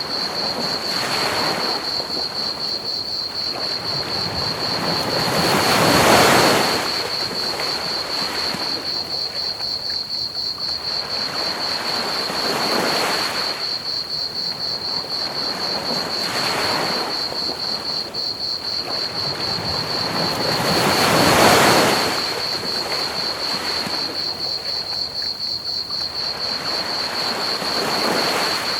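Ocean waves washing onto a beach, each swelling and falling away over a few seconds, two big ones about six seconds in and near two-thirds through, with smaller ones between. Underneath, crickets chirp in a steady rapid pulse and a soft even hiss of pink noise runs.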